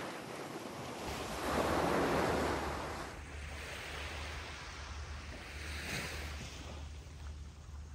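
Sea waves washing on the shore, one wash swelling louder about a second in and a smaller one around six seconds, over a low rumble of wind on the microphone.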